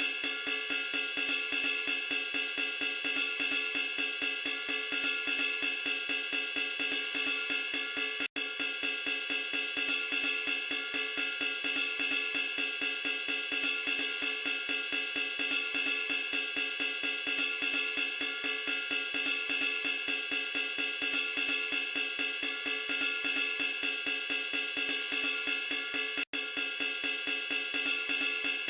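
Background music with a fast, even hi-hat beat over sustained tones. It drops out for an instant twice.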